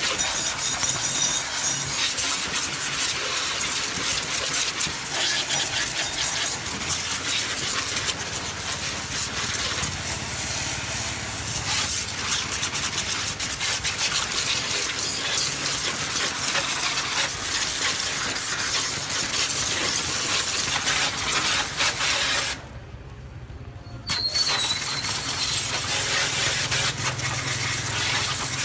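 Pressure washer blasting a pinpoint jet of water from its red nozzle against a motorcycle's underside and wheels: a loud, steady hiss of spray with the pump motor humming beneath it. About three-quarters of the way through, the spray stops for about a second and a half as the trigger is released and the machine cuts out, then starts again.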